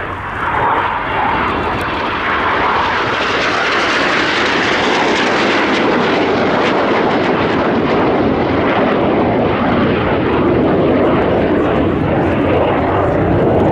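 Jet noise from the Red Arrows' BAE Hawk T1 jets, with their Rolls-Royce Turbomeca Adour turbofans, flying past: a loud, steady rush that swells about a second in and grows deeper toward the end.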